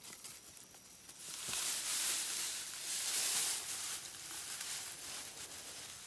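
Rice stalks and straw rustling and crackling as cut rice is gathered into a sheaf by hand; it swells about a second in and is loudest for two or three seconds before easing.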